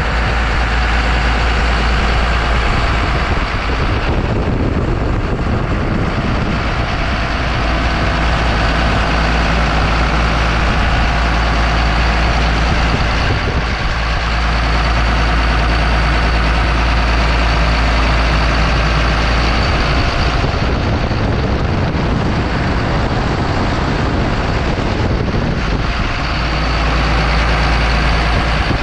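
Hyundai R245LR tracked excavator's diesel engine running steadily, with a deep hum under a broad mechanical noise. The sound shifts in character a few times.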